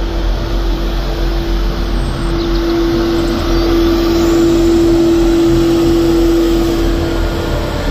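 Truck-mounted street sweeper at work: the engine and suction fan run with a low rumble and a steady whining tone, under a wash of brushing and sucking noise. The whine grows louder in the middle as the sweeper passes.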